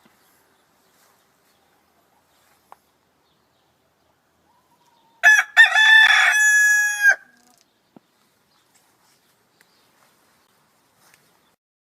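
A rooster crowing once, a little before halfway through: a few short, choppy notes, then a long held note that breaks off, about two seconds in all.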